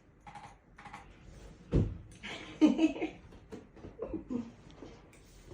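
A low thump a little under two seconds in, then a brief burst of laughter, followed by softer vocal sounds.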